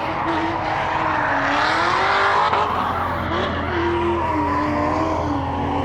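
Drift cars sliding on track: tires squealing in long, wavering screeches over the steady drone of engines.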